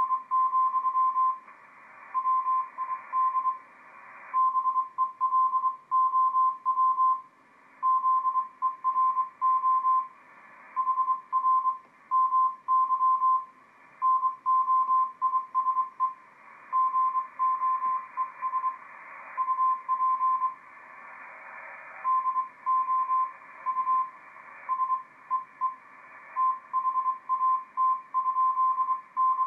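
Morse code (CW) signal heard through an Icom IC-7300 ham radio receiver: a tone of about 1 kHz keyed on and off in dits and dahs at about 18 words per minute, over steady band hiss.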